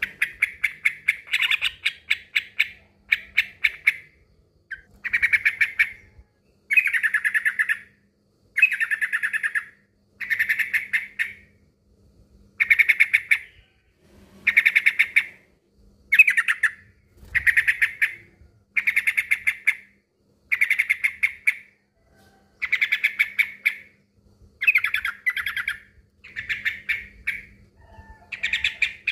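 Male yellow-vented bulbul (trucukan) singing its rival-calling song: a phrase of about a second, each a quick run of notes, repeated over and over with short pauses, about one every two seconds.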